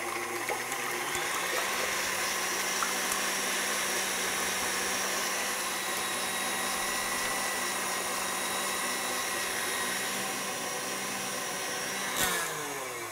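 Electric stand mixer running steadily, its wire whisk beating egg whites into meringue in a glass bowl. The motor comes up to speed in the first second or so, then winds down with falling pitch after a click near the end.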